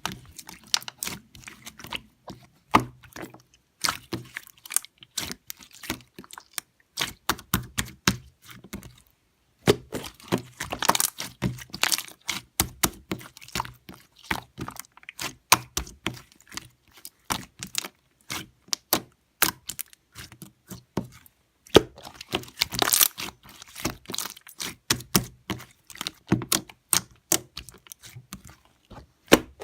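Close, irregular clicking and tapping with some crackling handling noise, in quick runs broken by short pauses.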